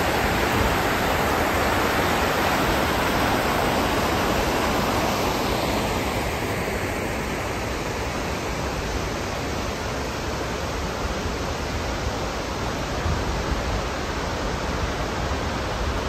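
Steady rush of a creek's rapids and a waterfall, a little louder for the first five seconds and then easing slightly.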